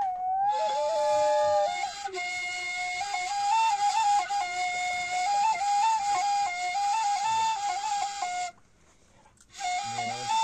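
End-blown flute playing a melody, one line of notes with quick ornamented steps. It breaks off for about a second near the end, then picks up again.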